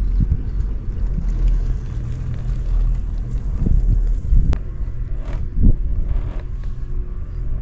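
Steady low rumble with a few soft thumps and one sharp click about four and a half seconds in.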